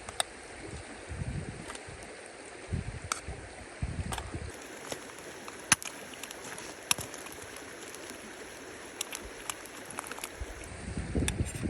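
Small wood fire crackling, with scattered sharp pops over a steady hiss and a few low thuds.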